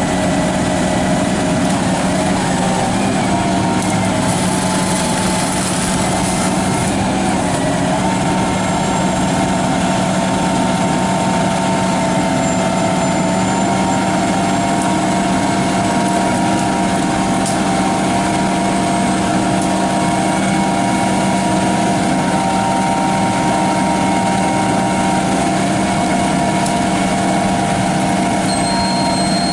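A large engine running steadily at a constant speed, with a steady low hum and several higher steady tones above it.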